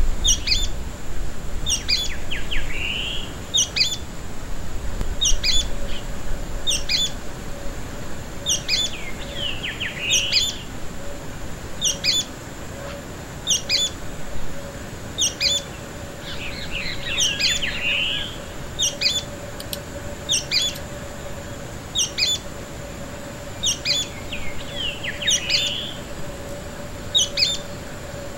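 Sooty-fronted spinetail singing its song: a quick two-note call repeated about every second and a half. Bursts of twittering notes come in four times between the calls.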